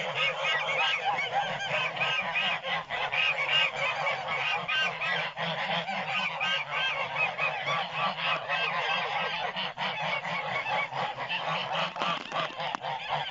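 A flock of grey domestic geese honking and cackling nonstop, many calls overlapping.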